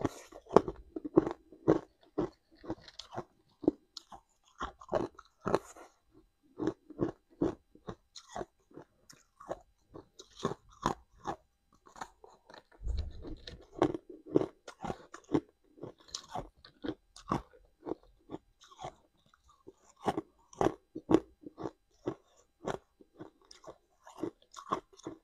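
Hard ice being bitten and chewed close to the microphone: a dense, irregular run of sharp crunches as the chunks crack between the teeth. A single low thump about thirteen seconds in.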